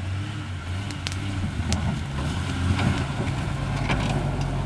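Dodge Dakota pickup's engine running low and steady while driving slowly over a rough trail, with scattered clicks and knocks through it.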